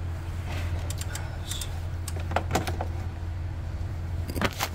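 Light clicks and knocks of hands working a serpentine belt onto the engine's pulleys, with a cluster of sharper clicks near the end, over a steady low hum.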